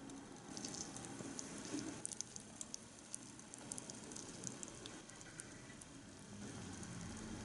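Small pot of broth with a whole onion simmering: a faint crackle of tiny bubbles popping, busiest in the first few seconds.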